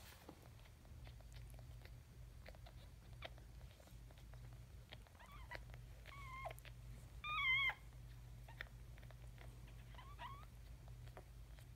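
Newborn puppies crying in four short, high, thin squeaks, the loudest and longest about seven and a half seconds in with a wavering pitch. Small clicks come between them over a faint low hum.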